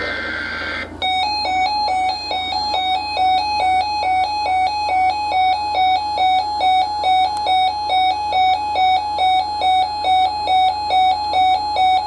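Weather alert radio sounding its alarm: a buzzy electronic tone that steps back and forth between two close pitches, pulsing about twice a second, as a new warning comes in. It starts about a second in, after a brief screech of the digital EAS header data.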